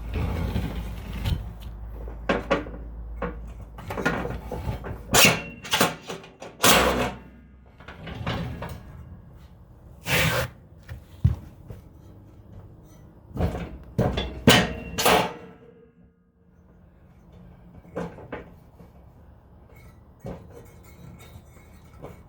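Irregular hammer blows and metallic knocks on a riding-mower deck spindle, stuck with its bearing still in the housing. They come in two bunches and stop about two-thirds of the way through.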